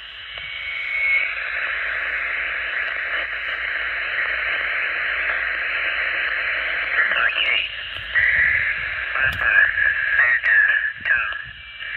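Icom IC-706MKIIG HF transceiver's speaker on 40 m lower sideband, giving a steady hiss of band noise. From about seven seconds in, a weak single-sideband voice signal comes through the noise.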